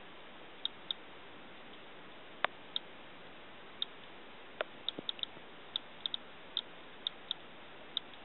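Kvarts DRSB-01 Geiger counter clicking at irregular intervals, about two sharp clicks a second, each click one detected particle. It is registering the radiation collected at a roof downspout, which the uploader finds elevated.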